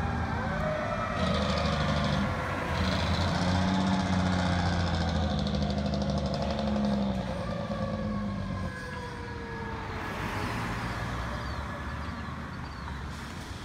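Fire truck siren wailing in long slow rising and falling sweeps as the apparatus drives away, fading out about two-thirds of the way through. A low engine drone from the trucks and traffic sits under it and drops away at the same time.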